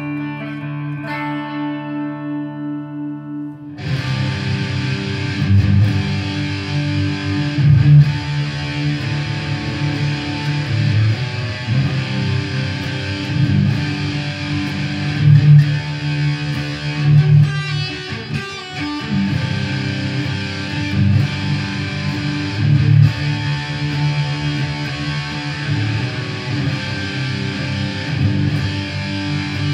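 Jackson Soloist electric guitar played through an amp: a few ringing clean notes, then about four seconds in it switches to a distorted tone and plays on. There is a short break about two-thirds of the way through.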